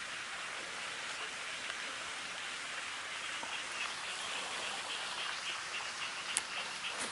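A steady outdoor hiss, with faint rapid chirping from about halfway and a single sharp tick about six and a half seconds in.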